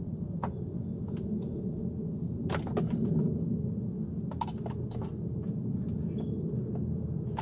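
Scattered small clicks and knocks of plastic dash trim and clips being handled and pried loose, over a steady low rumble.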